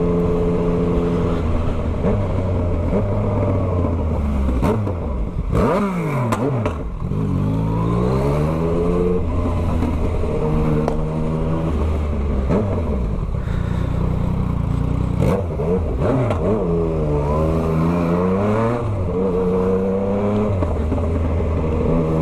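Yamaha MT-09's 890 cc crossplane inline-three engine through a full 3-into-1 Atalla exhaust with no muffler, running steadily with its pitch rising and falling several times as the throttle opens and closes. A few short sharp crackles stand out, about a third of the way in and again past halfway.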